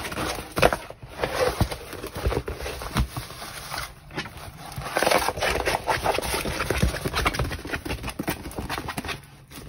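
A rolled diamond painting canvas with a plastic cover being handled and turned over on a table: rustling and crinkling of the canvas and film, with scrapes and light clicks, loudest about half a second in and again around five seconds.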